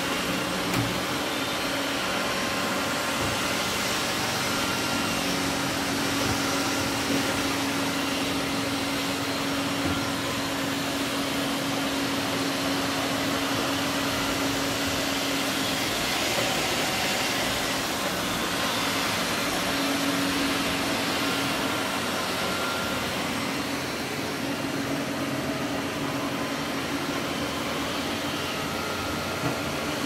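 Several robot vacuum cleaners (iRobot Roombas, a Xiaomi Mi Robot Vacuum-Mop 1C and a Samsung POWERbot) running at once, a steady whir of suction fans and brushes with a low hum that swells and fades. A few light clicks come through now and then.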